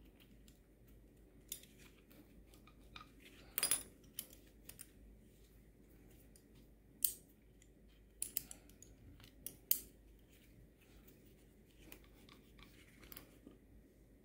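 Metal snap hooks clicking and clinking as they are clipped onto the metal rings of resistance-tube handles: scattered sharp clicks, the loudest cluster about four seconds in.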